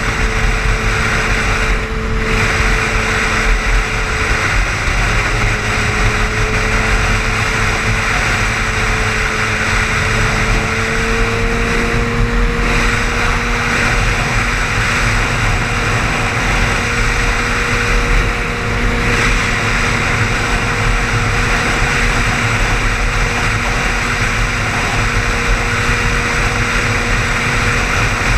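Car driving at highway speed: steady engine and road noise, with a low hum whose pitch creeps up slightly a few seconds in, then holds.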